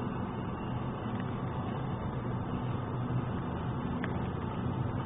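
Car engine and tyre noise heard from inside the cabin while driving: a steady low hum over an even road rush.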